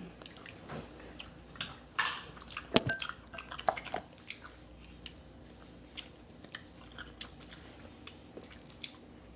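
Close-up eating sounds from a seafood boil: chewing and biting, with a cluster of sharp cracks and clicks about two to four seconds in, then fainter scattered clicks.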